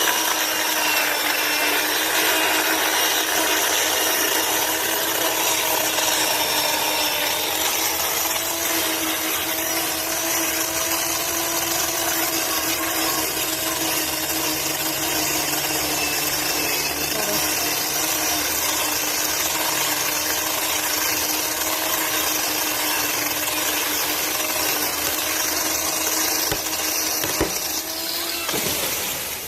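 Chainsaw running at a steady high speed with a constant whine. Near the end its pitch sags and it eases off.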